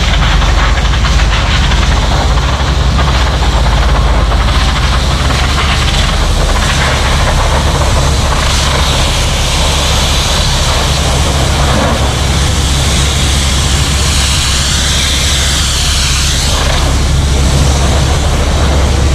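Large bulldozer's diesel engine running steadily with a heavy low drone under a rough mechanical din. A high, wavering squeal comes in about halfway through and cuts off about three-quarters of the way in.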